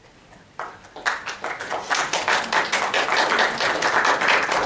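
Audience applause: a few claps about half a second in, quickly building to steady clapping from many hands.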